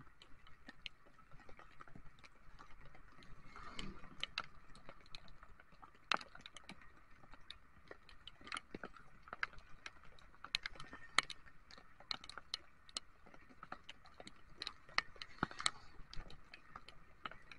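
Raindrops ticking irregularly on the camera and the scooter's windscreen during a ride in the rain, many sharp single taps over a faint steady rushing.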